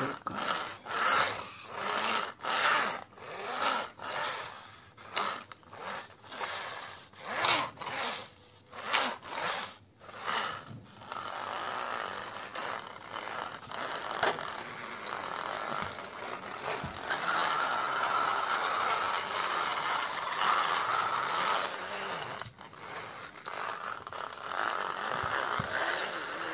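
Plastic toy car's wheels rolling and scraping on a hard floor as it is pushed by hand: first in quick back-and-forth strokes, then about halfway through a steadier, continuous rolling scrape.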